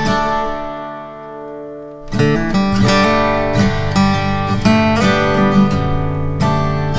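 Background music on acoustic guitar. A held chord rings and fades, then plucked and strummed playing starts again about two seconds in.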